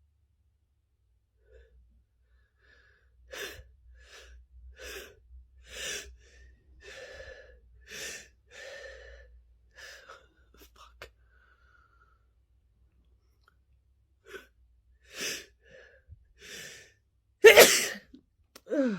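A person's build-up to a sneeze: a run of short breathy gasps and catches of breath over several seconds, then one loud sneeze near the end.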